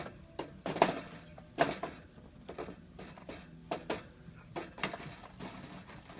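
Hamster moving about a plastic cage: irregular clicks, taps and rustles as it scrabbles over the plastic floor and through paper bedding.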